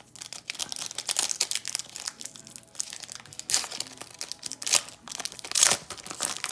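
Crinkling and tearing of a football trading card pack's wrapper as it is ripped open, with several louder crackles in the second half.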